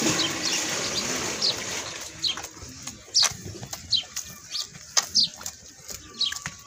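Calf suckling at a goat's teat, with wet sucking and smacking clicks about once a second, while small birds chirp repeatedly. A rushing noise fills the first two seconds.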